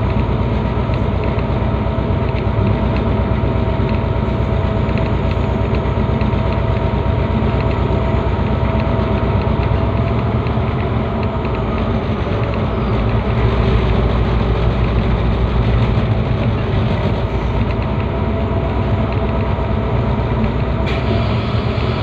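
Diesel locomotive running under way: a steady engine drone with a dense low rumble and a constant hum, with no break or change in pace.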